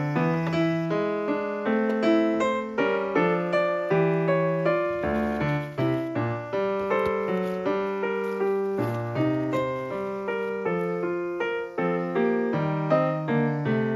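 Background piano music: a gentle melody of single struck notes at an even pace.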